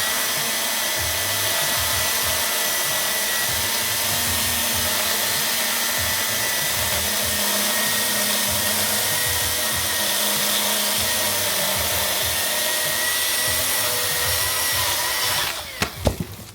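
Milwaukee M18 cordless chainsaw running steadily under power with a high electric whine. It cuts out near the end, followed by a few sharp knocks.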